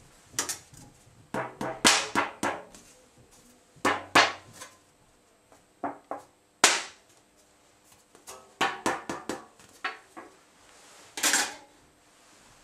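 Metal plates and discs of a dismantled thermomechanical Stirling generator being handled and set down on a workbench: irregular clusters of clanks and clinks, some ringing briefly.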